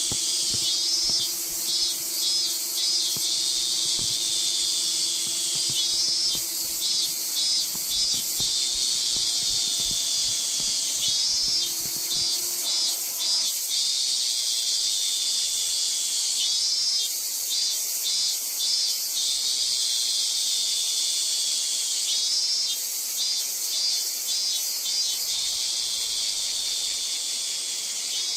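Insect chorus, likely cicadas: a steady high-pitched shrill with a pulsing phrase of several beats that comes back about every five seconds.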